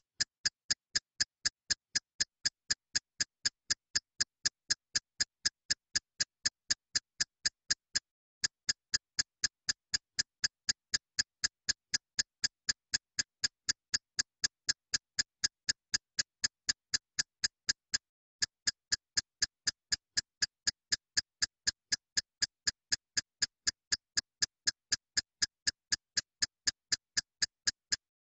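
Looped electronic ticking as background music: sharp, even clicks about three a second, each with a short break about every ten seconds.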